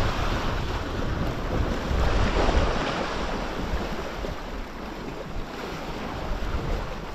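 Sea waves washing and foaming against shoreline rocks, with a swell of surf about two seconds in. Wind buffets the microphone with a low rumble that eases in the second half.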